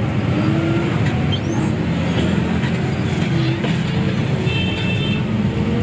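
Engine and road noise of a Hino RG-chassis bus under way, heard from inside the cabin: a steady, loud running drone. A short high-pitched tone sounds about three-quarters of the way through.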